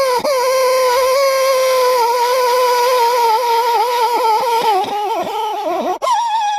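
Die grinder whining steadily at high speed as its burr grinds out a seized aluminium core plug from a cast iron engine block. The pitch dips briefly again and again as the burr bites, more often in the second half.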